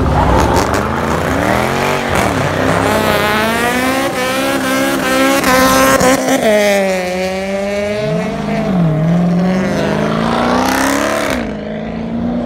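Car engine revving hard, its pitch rising and falling over and over, with tyres squealing as the car slides sideways through donuts. The squeal cuts off near the end while the engine keeps running.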